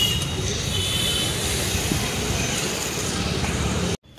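Steady din of street traffic at a roadside food stall, with faint voices in the background; it cuts off suddenly near the end.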